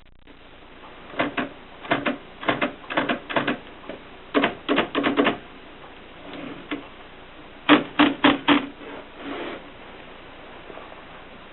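Gossen Tippa portable manual typewriter being typed on: its keys strike in short bursts of several clicks with pauses between, and a softer run comes near the end.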